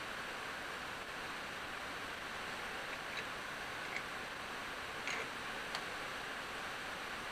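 A few light clicks of metal engine parts being handled and fitted by hand, four in all, spaced about a second apart in the second half, over a steady hiss.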